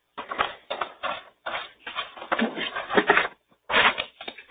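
Irregular rustling and handling noises: a string of short scratchy bursts with brief gaps.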